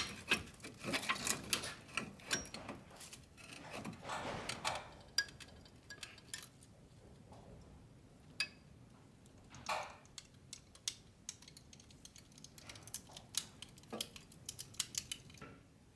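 Flat-blade screwdriver prying a Mercedes E350 front brake caliper outward to push the caliper piston back: irregular metallic clicks and scrapes of the blade against the caliper and brake pad. The clicks come thickly in the first few seconds, then thin out to scattered ticks.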